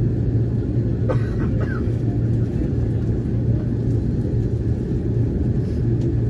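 Steady cabin rumble of an Airbus A330-300 jet heard from inside the passenger cabin: a deep, even roar of engines and airflow with a low hum. A faint voice is heard briefly about a second in.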